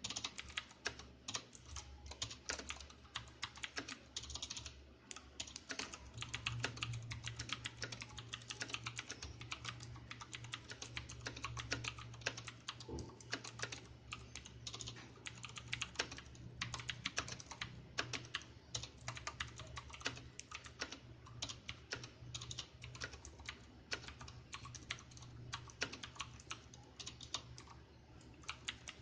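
Typing on a Cooler Master MasterKeys Pro S mechanical keyboard with clicky Cherry MX Blue switches: a fast, continuous run of sharp key clicks.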